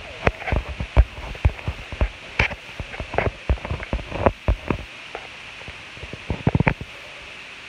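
A run of sharp clicks and knocks at irregular spacing, with a quick rattle of clicks near the end.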